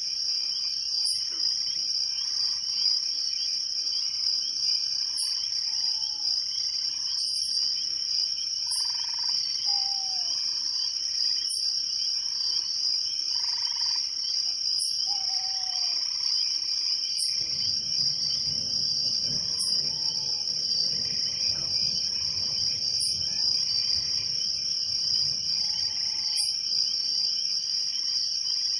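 Steady night chorus of crickets trilling, with a higher chirp repeating every two to three seconds and a few short falling calls. A low rushing wind noise comes in a little past halfway.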